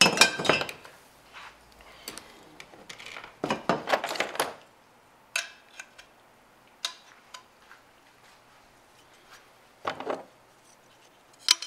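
Kayak rail hardware being handled: the rail bars and small plastic end fittings clink, knock and rattle against each other and the kayak's plastic deck, with plastic packaging rustling. The clatter comes in bursts, loudest at the start, again about three and a half seconds in, and briefly around ten seconds.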